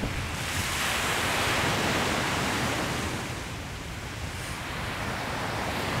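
Small ocean waves breaking and washing up a sandy beach. The hiss of the surf swells about a second in, ebbs around four seconds, and builds again near the end.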